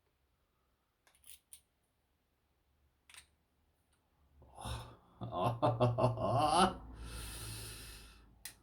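A few faint clicks, then a man's wordless voiced murmur lasting about two seconds, followed by a long breathy exhale like a sigh.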